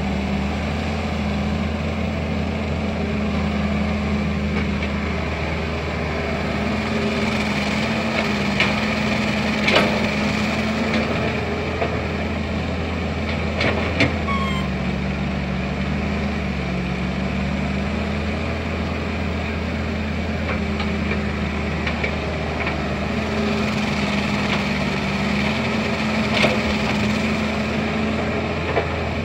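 Excavator's diesel engine running steadily, its note dipping and recovering as the hydraulics take load, with a few sharp knocks and clanks, the loudest about ten and fourteen seconds in.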